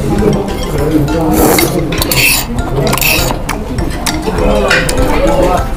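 A person eating seonji haejangguk slurps three times about a second and a half, two seconds and three seconds in, with metal chopsticks clicking against the dishes.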